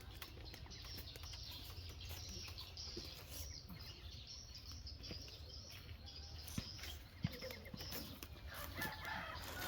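Outdoor background noise with faint bird chirping and a couple of small clicks.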